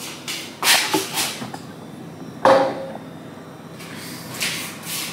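Kitchen handling sounds: two sharp knocks, about a second in and about halfway through, then a softer rustle near the end.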